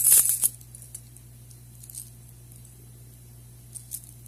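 Small metal keys on a ring clinking briefly as they are handled, followed by a few faint ticks over a steady low hum.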